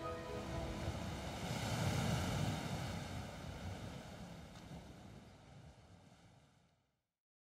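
Ocean surf washing on a shore, swelling about two seconds in, then slowly fading out near the end.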